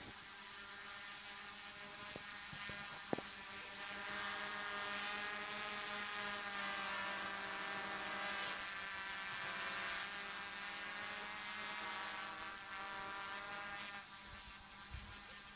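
DJI F450 quadcopter's motors and propellers buzzing in flight with a steady multi-toned whine. The buzz grows louder a few seconds in and drops again near the end. A single sharp click comes about three seconds in.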